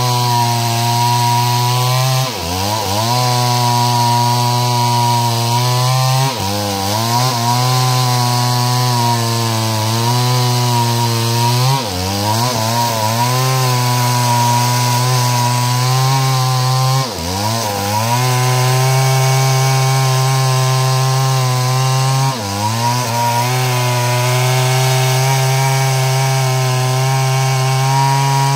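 Stihl two-stroke chainsaw running at full throttle while ripping wood lengthwise into planks. The engine holds a high, steady pitch, and about every five seconds it drops briefly and climbs straight back to full revs.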